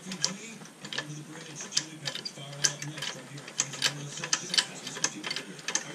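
Hand ratchet wrench clicking in quick, uneven runs as a bolt is turned under a riding lawnmower.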